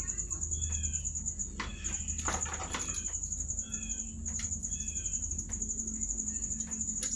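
Low steady electrical hum under a continuous high, rapidly pulsing trill, with a few short chirps and light clicks.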